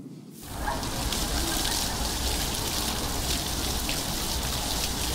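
Fountain water splashing steadily into its basin, a rain-like hiss that starts suddenly about half a second in.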